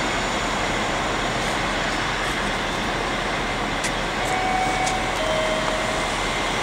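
Steady rolling noise of a passenger train of coaches pulling out of the station. Two short faint tones, the second a little lower than the first, come a little past the middle.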